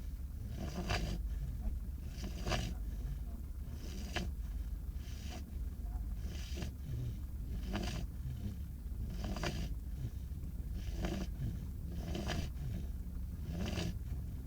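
Five-month-old beagle puppy snoring in its sleep, with a breathy snore about every second and a half, around ten in a row, over a steady low hum.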